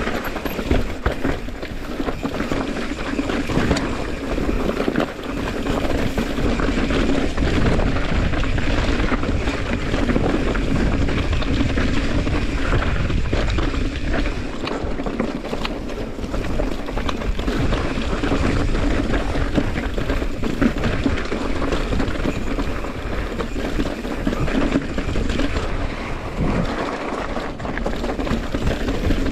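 Mountain bike rolling over a rocky dirt trail: wind rushing over the camera microphone along with steady tyre noise and the constant small rattles and knocks of the bike over stones.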